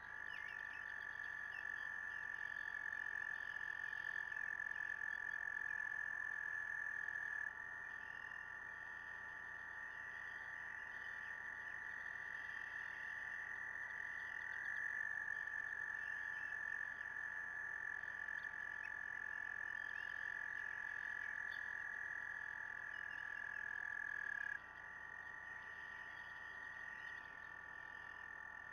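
Frog chorus: several long, steady trills overlap at slightly different pitches, and the mix shifts every several seconds as one trill gives way to another.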